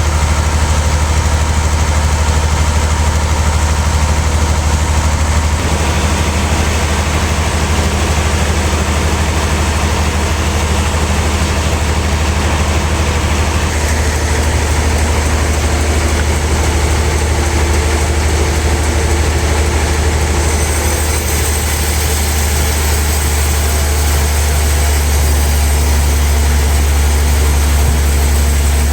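Sawmill machinery running with a steady low engine-like hum, its tone shifting a few times.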